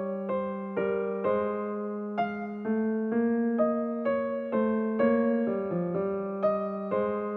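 Background music: a gentle, slow electric piano melody, single notes struck about twice a second, each fading before the next.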